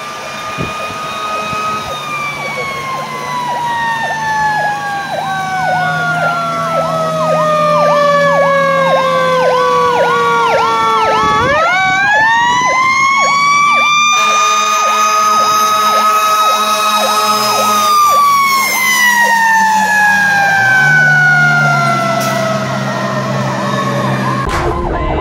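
Federal Q2B mechanical siren on a fire engine, winding slowly down in pitch for about ten seconds. It then spins sharply back up, holds at a high wail for several seconds, and begins winding down again near the end. An electronic siren yelps rapidly alongside it the whole time, over a steady low engine hum.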